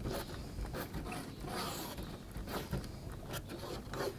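Paintbrush bristles scrubbing white glue across a scenery board, a quiet scratchy rubbing repeated stroke after stroke.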